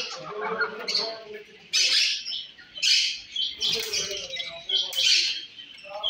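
Caged birds calling in a bird shop: a run of harsh, hissy calls about once a second.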